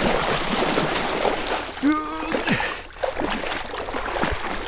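Water splashing as a white sturgeon, held by the tail in shallow water, thrashes at the surface. A short wordless voice sounds about two seconds in.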